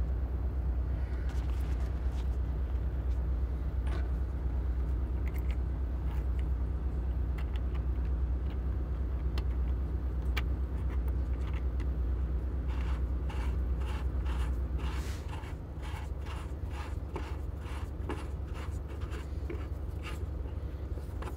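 Steady low rumble of an idling engine, which drops a little about fifteen seconds in. Over it, in the last third, comes a quick run of clicks and scrapes from small objects being handled.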